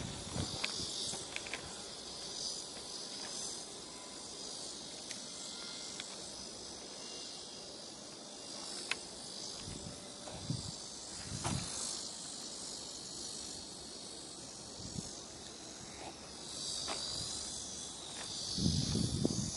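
Steady high-pitched chorus of insects in summer vegetation, with a few faint clicks. A louder low rumbling noise comes in near the end.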